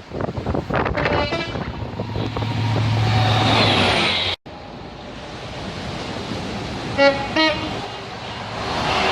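Train running noise, then an abrupt break about four seconds in. After the break, a British train's two-tone horn gives two quick blasts on two different notes about seven seconds in, and the train's running noise rises as it approaches.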